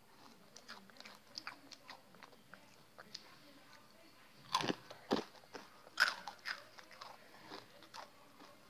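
Someone chewing crunchy Takis rolled tortilla chips: a run of sharp crisp crunches, loudest about four and a half to six seconds in.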